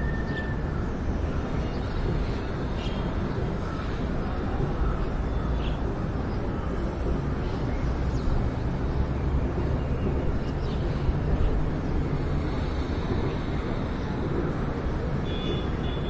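Steady low outdoor rumble with no speech, even in level throughout.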